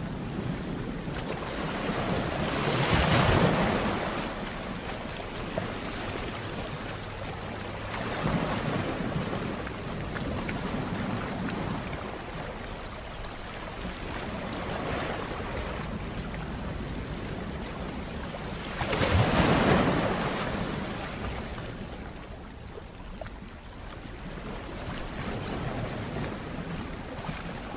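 Sea waves washing onto a rocky shore. The surf noise swells and ebbs every few seconds, with the biggest surges a few seconds in and about two-thirds of the way through.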